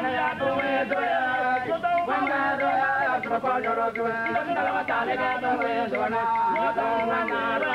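Chant-like singing in long, wavering held notes, with no drumming.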